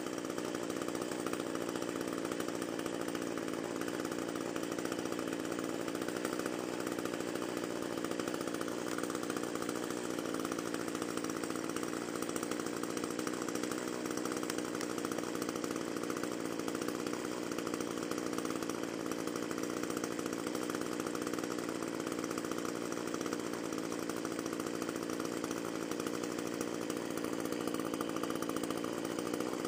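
Echo string trimmer's small two-stroke engine idling steadily. The owner thinks it is running only on prime and needs a carburetor rebuild.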